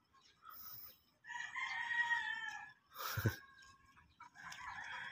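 A long animal call held for about a second and a half, then a single short knock about three seconds in, and another call starting near the end.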